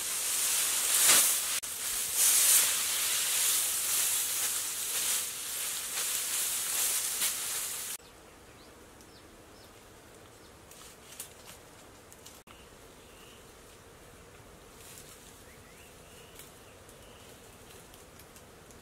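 Dry grass thatch rustling and crackling loudly as bundles are handled and pressed onto a hut roof. About eight seconds in it cuts to quiet outdoor background with a few faint high chirps.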